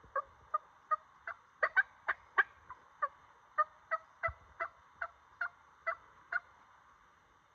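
Turkey yelping: a long run of short yelps, about three a second, bunching faster in the middle and stopping about a second before the end.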